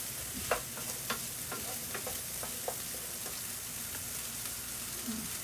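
Beans frying in a pan with a steady sizzle, broken by a few light clicks and taps, the loudest about half a second in.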